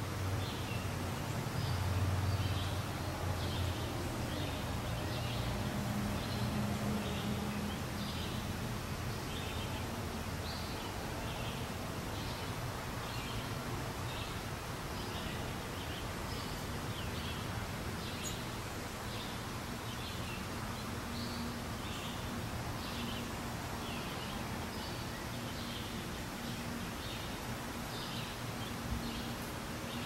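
Small birds chirping, short high notes repeated about once or twice a second, over a steady outdoor background with a low hum underneath.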